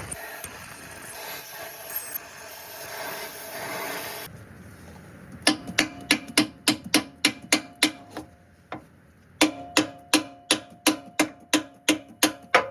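Metal struck with a hammer in a fast, even rhythm, about three blows a second, each blow ringing. There is a short break midway. Before the blows there is a rubbing, hissing noise.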